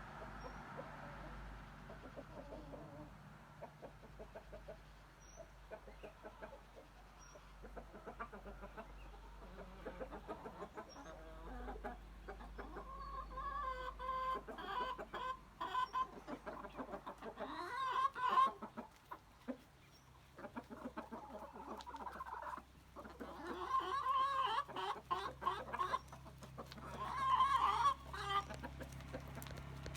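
Chickens clucking and squawking in a string of short calls, with louder bursts of cackling about halfway through and again near the end.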